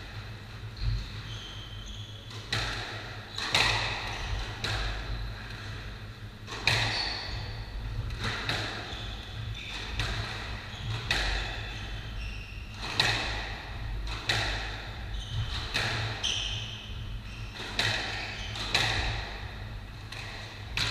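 Squash rally: the ball cracks off racquets and the walls every one to two seconds, each hit echoing around the enclosed court, with short squeaks of shoes on the wooden floor in between. A steady low hum runs underneath.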